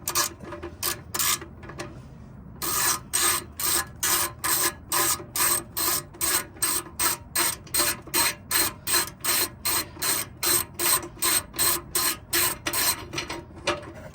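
Hand ratchet wrench clicking in quick, evenly repeated strokes, about three a second, backing out a screw. There is a short pause about two seconds in before the strokes resume.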